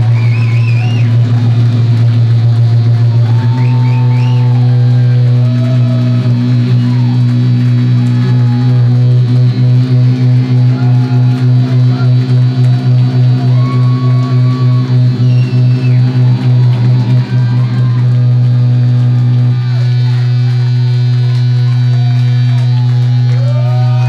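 Electric guitar feedback through loud amplifiers, with no drums: a held low drone under squealing, bending whistles. Through the middle stretch the drone pulses about four times a second.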